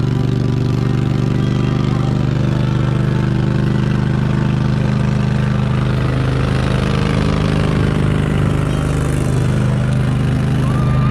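Utility vehicle's engine running steadily at an even speed while towing a train of barrel-cart cars.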